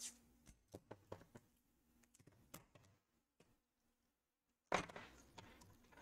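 Mostly near silence, with faint scattered clicks from gloved hands handling parts inside an opened laptop. One short scratchy rustle comes about five seconds in.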